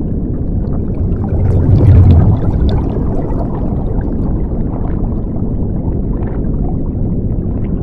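Underwater bubbling and low rumbling sound effect, swelling loudest about two seconds in and then running on steadily.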